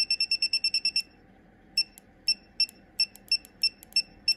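Gearwrench 120XP digital torque wrench's keypad beeping as the down button steps the torque setting toward 18 ft-lb. A fast even run of short beeps, about eight a second, stops after a second. After a short gap come slower single beeps at uneven spacing, one per press.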